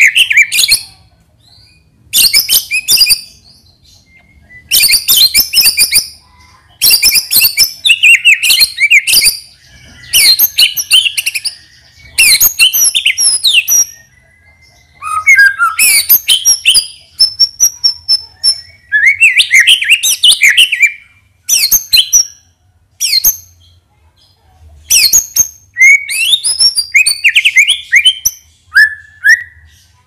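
White-rumped shama (murai batu) singing loudly in a string of rapid, varied phrases, each a second or two long with short pauses between, including mimicked fill-in phrases (isian).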